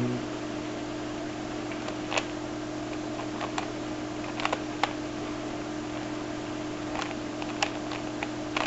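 Scattered plastic clicks of a Rubik's cube's layers being turned, a few single clicks and small clusters, over a steady low electrical hum.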